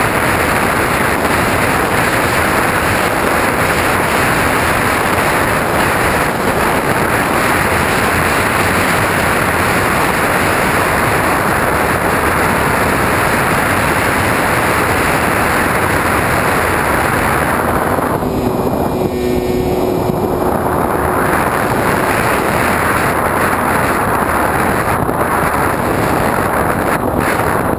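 Steady rush of wind over the microphone of a camera riding on a radio-controlled airplane in flight, mixed with the plane's propeller and motor. About two-thirds of the way through, the rush drops off for a few seconds and a steady hum comes through.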